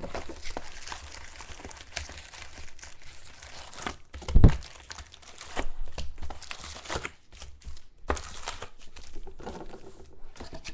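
Crinkling and tearing of plastic wrapping as a sealed box of trading cards and its packs are opened by hand. A single dull thump about four and a half seconds in.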